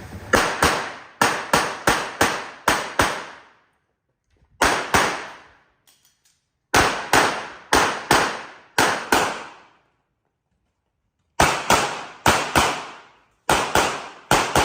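Handgun fired rapidly in practical-shooting style, mostly in quick pairs, in four strings separated by pauses of one to two seconds.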